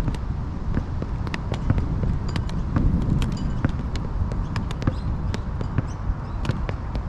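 Quad roller skates rolling and rocking on an outdoor court surface, with many sharp irregular clicks and knocks from the wheels and toe stops. A low wind rumble sits on the microphone throughout.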